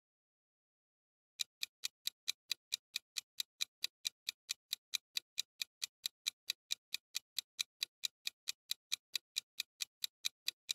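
Clock-ticking countdown timer sound effect: even, sharp ticks about four a second, starting about a second and a half in.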